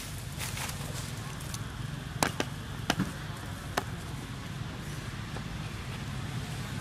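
Steady low background hum with a handful of sharp clicks, about four of them between two and four seconds in.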